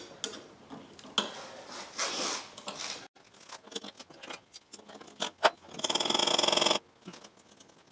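Hand-tool work on a bolt in an engine bay: a 10 mm wrench scraping and clicking against metal fittings. Near the end comes a loud buzzing rattle that lasts about a second.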